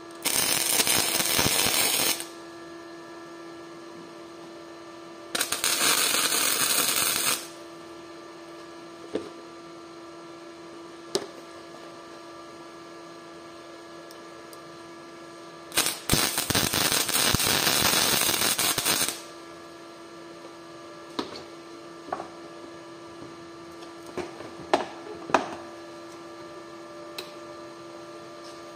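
A power tool run in three short bursts of two to three seconds each, the last the longest, starting and stopping sharply over a steady electrical hum. A few light clicks and knocks of handling follow.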